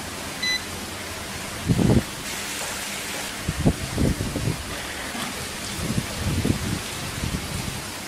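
Electric kettle base's touch panel gives one short electronic beep about half a second in, over a steady hiss. Irregular low thuds and rumbles follow, the loudest a couple of seconds in and again around four and six seconds in.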